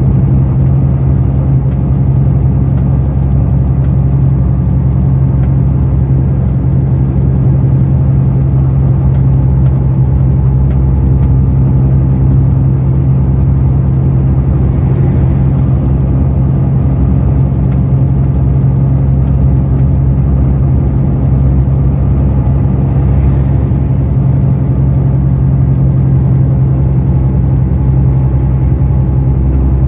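Loaded heavy truck's diesel engine pulling steadily up a long climb, heard from inside the cab as a loud, even drone with road rumble.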